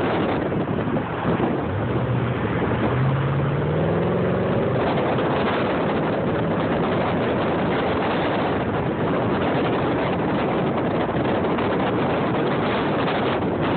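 Steady road and wind noise from a car travelling on a freeway. An engine note climbs in pitch for a few seconds near the start as a vehicle speeds up.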